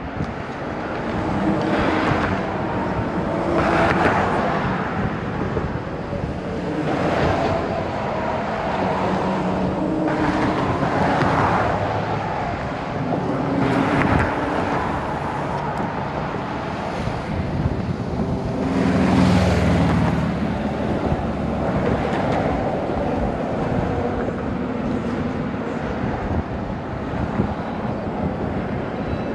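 Road traffic crossing the drawbridge, with a car or truck going by every few seconds, each one swelling and fading with a tyre hum. The loudest pass comes about two-thirds of the way through.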